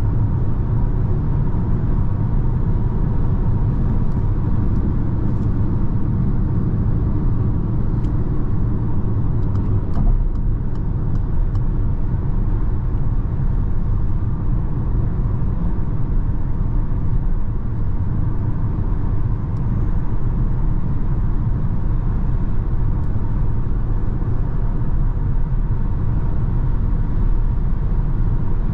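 Steady road and wind noise inside the cabin of a Peugeot e-2008 electric SUV cruising at motorway speed. There is no engine, only the hum of the tyres on the road and the rush of air around the car.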